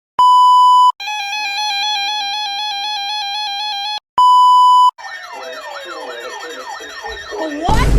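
A run of electronic alert sounds: a steady beep just under a second long, a buzzing, rapidly pulsing alarm tone for about three seconds, a second beep, then several sirens wailing up and down over each other, swelling into a loud rush of noise near the end.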